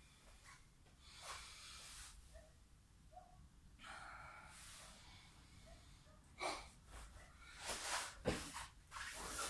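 A man breathing hard and panting as he recovers between burpee sets. From about six seconds in come sharper exhalations and thumps of his hands and feet landing on the floor mat as he starts a burpee, the loudest about eight seconds in.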